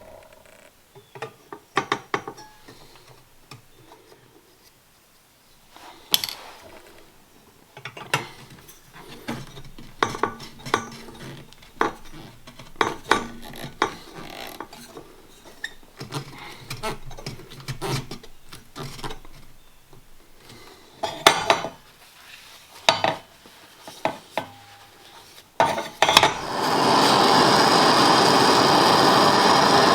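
Copper pipe fittings and metal tools being handled, with scattered clinks, knocks and rattles. Near the end a loud, steady rushing hiss sets in.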